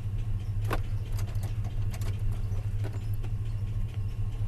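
Vehicle engine idling steadily with a low, even hum, with a few faint clicks over it.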